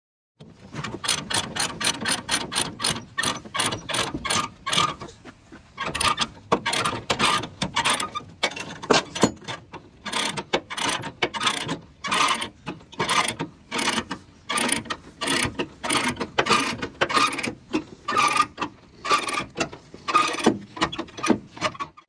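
Ratchet chain binder being cranked to tighten a tie-down chain: a steady run of sharp ratcheting clicks, about three a second, with a brief pause about five seconds in.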